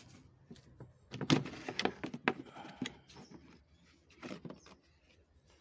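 Plastic trim cover being pulled off inside a car to reach the cabin air filter: a run of sharp plastic clicks and scraping about a second and a half in, then a few fainter clicks near the four-second mark.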